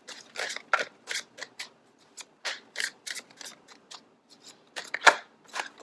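A deck of tarot cards being shuffled by hand: a run of irregular crisp snaps and slaps of card stock, a few each second.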